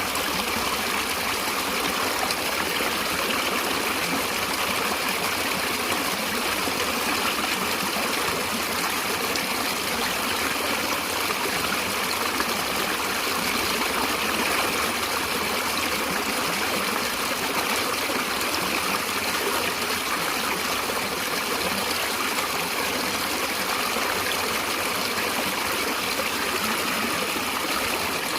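Stream water flowing and trickling steadily over rocks, an even rushing babble with no change.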